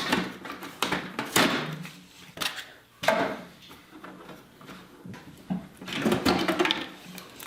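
Unpacking an inkjet printer by hand: a string of knocks, scrapes and rustles from the printer and its packaging being moved and pulled about.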